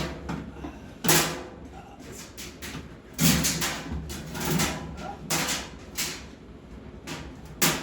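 A washing machine's parts being worked into place during a suspension rod replacement: a run of irregular knocks and clunks, several of them sharp, with quieter rubbing between.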